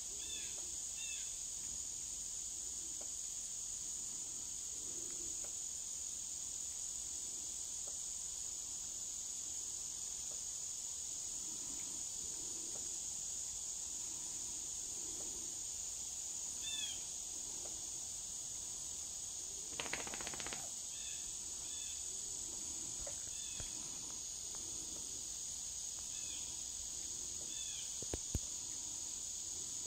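Steady high-pitched insect chorus, with short bird chirps now and then. A brief harsher sound cuts in about two-thirds of the way through, and there is a sharp click near the end.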